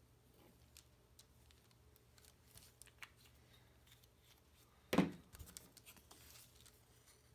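Small handling noises of balsa parts and a glue bottle on a wax-paper-covered cutting mat: faint scattered clicks and taps, then one sharp knock about five seconds in, followed by a second of rustling.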